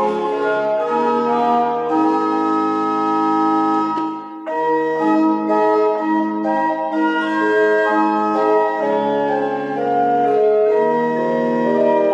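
Organ playing a hymn tune in held chords, with a brief break between phrases about four seconds in.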